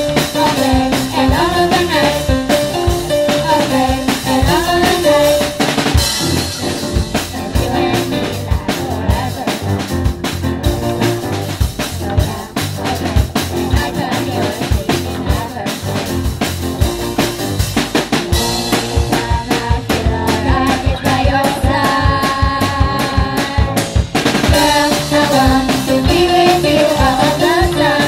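Live rock band playing a song through small PA speakers: two young singers over drum kit, electric guitar, bass guitar and keyboard. After about five seconds the singing stops for a drum-heavy instrumental break, and the voices come back near the end.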